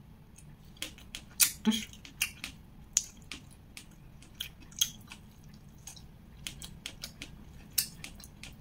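A person chewing food with her mouth closed: irregular wet clicks and smacks of the mouth, a few louder than the rest, with her fingers picking at food on the plate.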